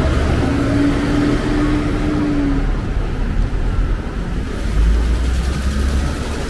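Street traffic: a motor vehicle running close by. A steady hum holds for about two seconds in the first half, and the low rumble swells briefly around five seconds in.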